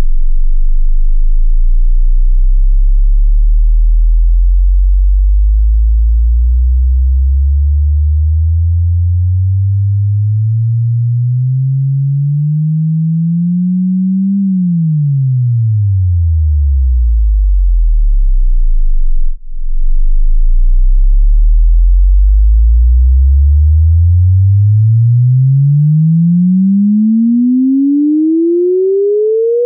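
Electronically generated pure sine test tone for checking headphones, sweeping through the bass. It starts very low, glides slowly up to a low hum by about halfway, drops quickly back to the deep bass, holds there, then rises steadily again into the mid-range near the end.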